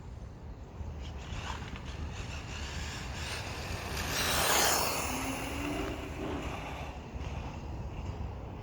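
Blitz RC short course truck driving, with a whoosh that rises and falls as it passes close about halfway through, over a steady low rumble of wind on the microphone.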